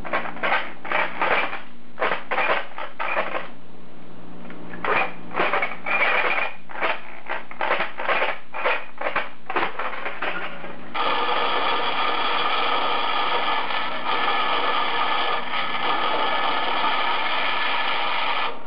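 Jigsaw cutting 304 stainless steel sheet in short bursts, about two a second, with a pause of about a second near the one-fifth mark. About eleven seconds in, it changes to a vertical band saw cutting the stainless steel steadily: a continuous whine of several tones.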